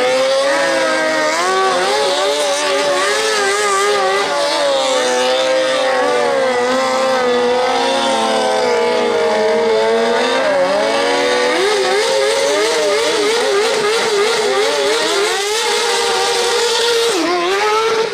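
Two sport motorcycles held at high revs during burnouts and drifting donuts, the engine pitch wavering up and down, over the hiss of spinning rear tyres on tarmac. Near the end the revs drop sharply and climb again.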